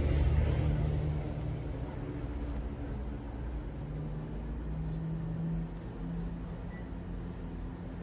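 Panasonic CS-S10NKP inverter split air conditioner's indoor unit running with a steady low hum, a little louder in the first second.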